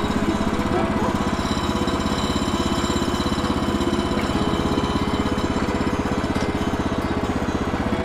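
Gas engine of a Woodland Mills HM130MAX portable sawmill idling steadily with an even, fast pulse.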